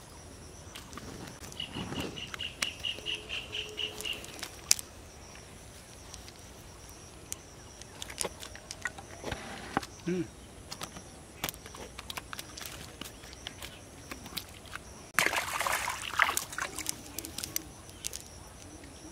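A wet cast net and freshly caught fish being handled by hand: scattered rustles, taps and flaps, with a louder burst of scuffling and splashing about fifteen seconds in. A bird trills briefly near the start.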